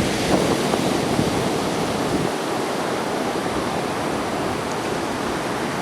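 Atlantic Ocean surf rushing on the beach, a steady, even wash of noise.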